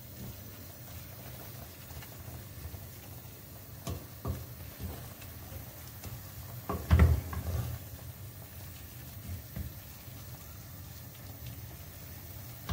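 Grated carrot, parsley root and celeriac with tomato paste frying in a stainless steel pan while being stirred with a wooden spoon: a steady sizzle with a few knocks of the spoon against the pan, the loudest about seven seconds in.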